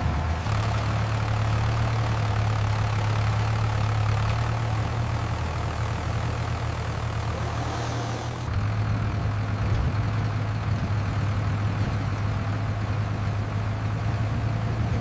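A heavy engine running steadily with a constant low hum. The sound changes abruptly a little over halfway through, where the higher hiss drops away while the engine hum carries on.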